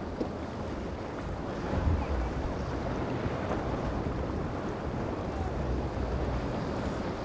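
Strong wind blowing across the microphone, swelling in gusts, over a steady wash of waves breaking.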